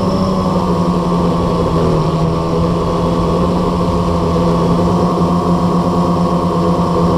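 Blade 350 QX quadcopter's four brushless electric motors and propellers humming steadily in a hover, heard from the camera mounted on the drone. The hum carries a strong low tone that wavers slightly in pitch.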